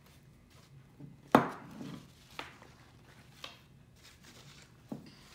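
A metal spoon knocking and scraping against a ceramic bowl while stirring sticky marshmallow slime. There is one loud clack just over a second in, then lighter knocks about once a second.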